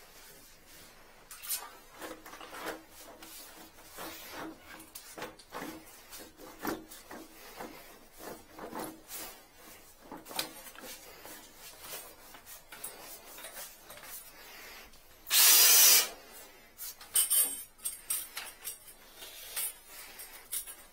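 Drum drain-cleaning machine's 8 mm spring cable rattling, scraping and clicking in its wire drum as it is worked into the drain, with scattered knocks. About fifteen seconds in, a brief loud rushing noise stands out above it.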